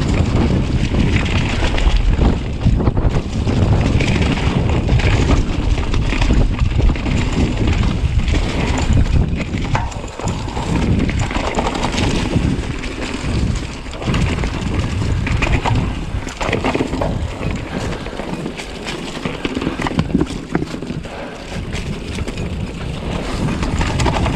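Wind blowing on the microphone of a mountain bike speeding down a dirt forest trail, with the tyres rolling over dirt and leaves and the bike rattling over bumps in short knocks.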